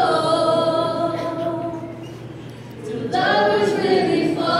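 A group of young voices singing a cappella, holding long notes in unison. The singing fades at the end of a phrase about two seconds in and comes back strongly just before three seconds.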